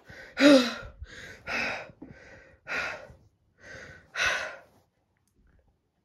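A voice taking about seven heavy, breathy gasps in a ragged run, then falling silent a little past the middle.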